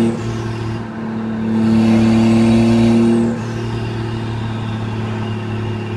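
Turbocharged Toyota 1JZ straight-six running under way at a steady engine speed, its note dropping just after the start, swelling louder again about a second and a half in, and falling back about three seconds in as the load comes and goes.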